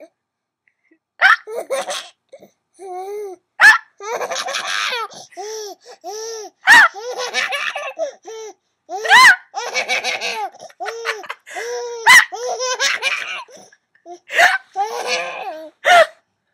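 A baby with the hiccups: about seven sharp hiccups, every two to three seconds, with runs of high-pitched baby laughter between them.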